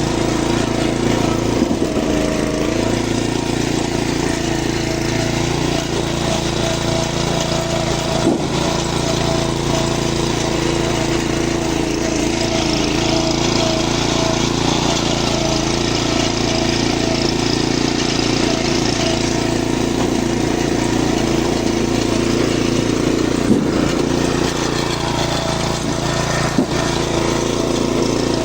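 Small engine of a machine used to haul fruit bunches, running steadily, with a few sharp knocks.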